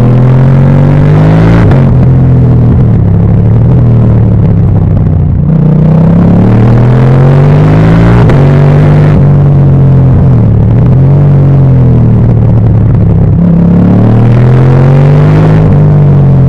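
Motorcycle engine accelerating, its pitch climbing and dropping back several times over a low rumble.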